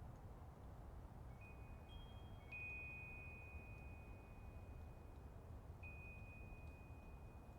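Faint chimes ringing: a few high, clear tones struck one after another, each held and slowly fading, over a soft low rumble.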